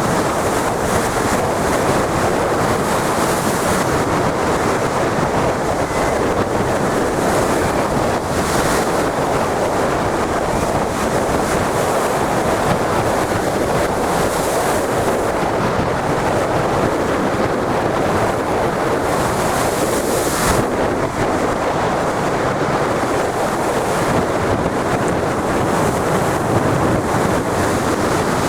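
Big ocean waves breaking in a loud, continuous rush of surf, with wind buffeting the microphone. Hissing surges come and go every several seconds.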